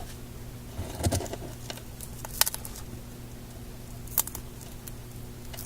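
Small hard parts and tools handled on a workbench: a soft knock about a second in, then three sharp clicks, over a steady low electrical hum.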